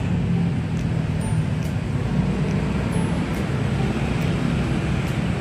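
Steady road traffic noise: a low, even rumble of vehicles on the street.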